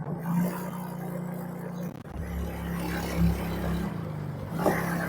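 Yamaha Mio J scooter's single-cylinder engine running under throttle, with a deeper, louder rumble in the middle, while its pull is tested. The pull feels heavy and dragging, and the scooter struggles on climbs.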